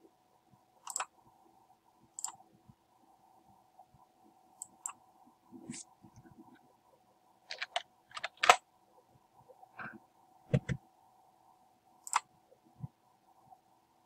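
Scattered sharp clicks of a computer mouse and keyboard keys, about a dozen at irregular spacing, the loudest about eight and a half seconds in, over a faint steady hum.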